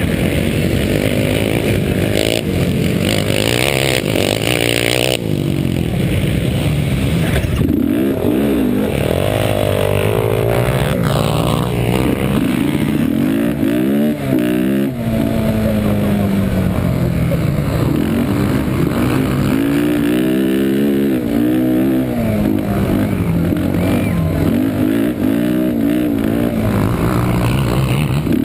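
Yamaha Warrior 350 ATV's single-cylinder four-stroke engine, heard close from the quad itself, racing at full throttle. It holds a steady high note for the first few seconds, then rises and falls in pitch again and again as the rider shifts and works the throttle.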